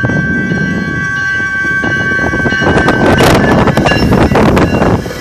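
Faint, steady, high-pitched whine from a GO Transit Bombardier bilevel cab car's horn, which is failing to sound properly; the uploader suspects a frozen air line. The whine stops about halfway through, and the passing train's loud clatter and rush take over.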